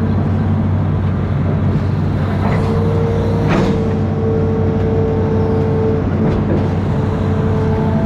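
Amphibious excavator's diesel engine running steadily under work, a continuous low drone with a steady whine above it that shifts slightly in pitch about halfway through. A short hiss comes around the middle.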